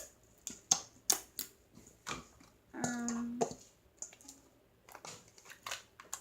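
Sticky jiggly slime being squeezed and stretched by hand, giving off irregular sharp clicks and pops.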